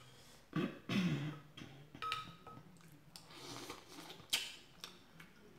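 Close-up eating sounds as a mussel is eaten from its shell: wet mouth noises, a low hummed 'mm' that falls and then holds, and a sharp click about four seconds in.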